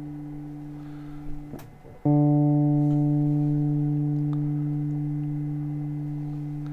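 Clean electric guitar, a single note ringing and slowly fading. A brief scrape of a hand on the strings comes about one and a half seconds in. Just after two seconds a new note is plucked and left to sustain, its attack's complexity settling into a smoother, steady tone.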